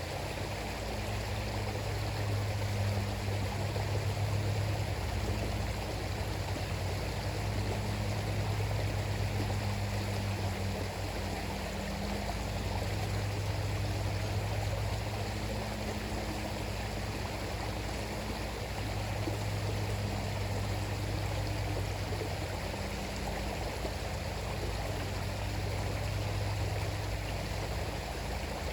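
River flowing steadily through jungle: a continuous rush of water, with a low, steady hum running underneath.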